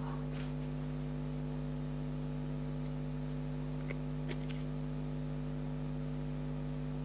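Steady electrical hum made of several fixed tones, with two faint clicks about four seconds in.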